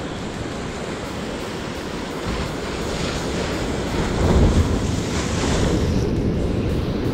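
Sea surf breaking and washing over shoreline rocks, swelling to a louder surge about four seconds in.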